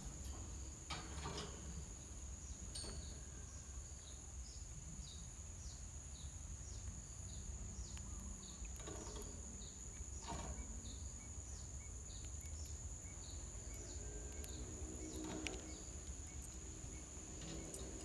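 Steady high-pitched insect drone from the surrounding garden. Over it run short high chirps about twice a second for much of the time, and a few sharper calls.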